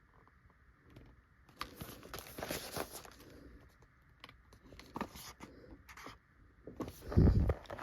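Handling noises from small items being picked up and moved: scattered light knocks, clicks and rustles, with a louder dull thump near the end.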